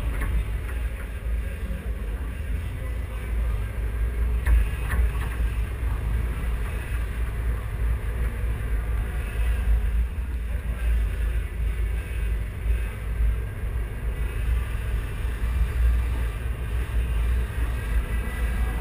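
Low rumble of a 1981 Chevy stepside pickup's engine as the truck drives slowly, heard from a camera mounted on the truck.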